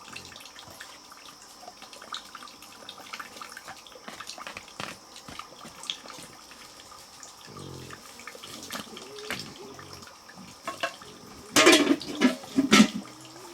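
Water splashing and trickling, with scattered drips and small knocks, and a few louder sudden noises near the end.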